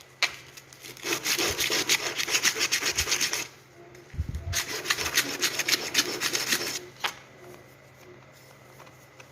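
Rapid back-and-forth strokes of a hand tool working wood, in two runs of about two and a half seconds each with a short pause between, then a single knock.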